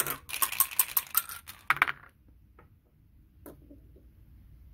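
Dice rattling and clattering as they are shaken and rolled for about two seconds, then a single click a little later.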